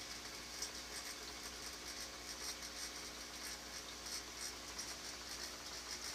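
Aquarium equipment humming steadily, with a faint, irregular crackling patter of moving water and bubbles.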